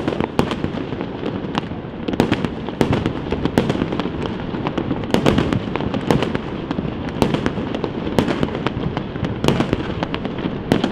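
Aerial fireworks exploding in a dense barrage: irregular sharp bangs, one or two a second, over a continuous din of further bursts and crackle.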